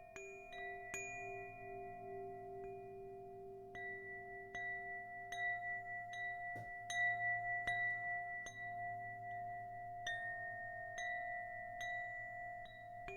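Soft bell-like metallic tones, struck in a loose, unhurried series about once or twice a second, each note ringing on so that several sustained pitches overlap into a steady chord.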